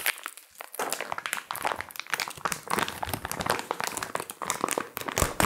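Clear plastic bag crinkling as a spool of 3D-printer filament is handled and unwrapped from it, in a dense run of irregular crackles.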